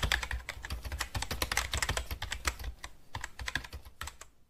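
Computer keyboard typing sound effect: a rapid run of keystroke clicks, with a short pause about three seconds in, then tailing off near the end.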